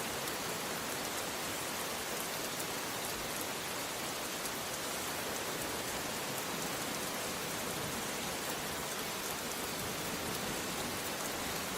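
Steady rain: a dense, even hiss of falling water, with individual drops ticking through it.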